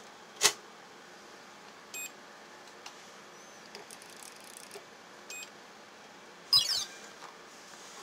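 A sharp click, then two short high beeps about three seconds apart from a Tajima embroidery machine control panel as its keys are pressed, and a brief, louder clatter near the end.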